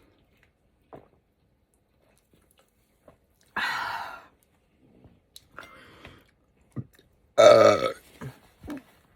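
A person burping twice, about four seconds apart, the second burp the louder.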